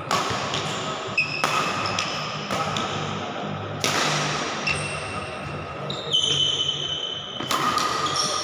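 Badminton rally: several sharp racket strikes on the shuttlecock, one to a few seconds apart, with high squeaks of court shoes on the floor between them.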